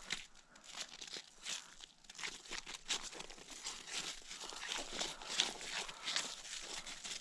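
Irregular rustling, crinkling and light crunching of close-up handling as a just-caught fish is held and unhooked on the ice.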